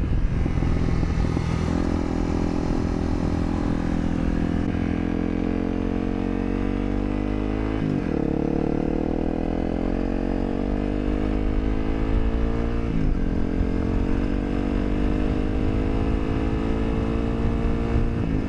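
Honda CRF250L's single-cylinder four-stroke engine accelerating through the gears, the pitch rising steadily with two upshifts, about eight and thirteen seconds in. Wind and road noise run underneath.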